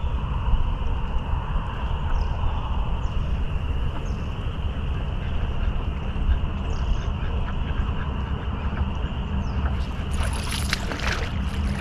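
Wind buffeting the microphone as a steady low rumble, with a scatter of sharp crackling rustles in the last couple of seconds.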